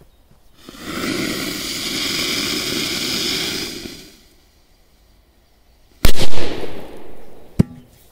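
A 'Roza' firecracker under a metal bowl hisses steadily for about three seconds as it burns, falls silent, then goes off with a single very loud bang about six seconds in. About a second and a half after the bang comes a sharp knock with a brief metallic ring as the bowl comes down.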